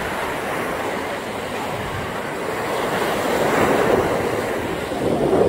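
Small surf washing onto a sandy beach, with wind on the microphone. The wash swells twice, about three and a half seconds in and again near the end.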